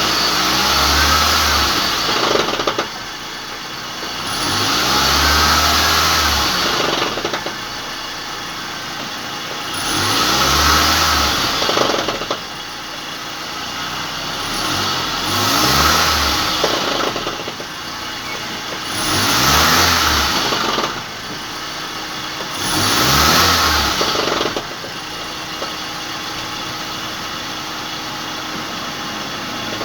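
Car engine revved six times, each rev rising for two or three seconds and then dropping back to idle, while the raised car's driven wheels spin freely.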